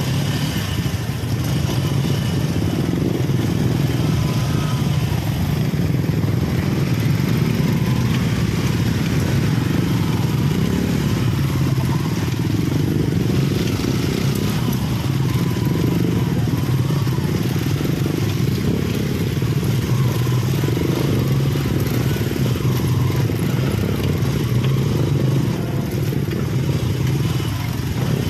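Several motorcycle and scooter engines running at low speed in a group, the nearest one loudest, as they ride over a rough rocky road; a steady, unbroken engine noise.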